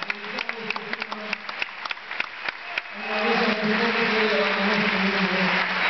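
Audience clapping, scattered claps at first, then swelling into fuller applause with crowd voices about halfway through.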